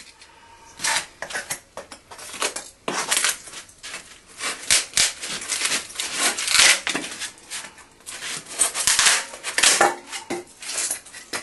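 A blade cutting and scraping at a taxidermy body blank for a goose, trimming it down to size: a run of irregular scraping strokes.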